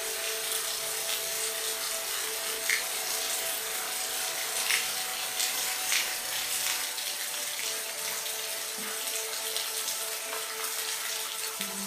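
Rain falling in a steady hiss, with a few louder individual drops and faint steady low tones underneath.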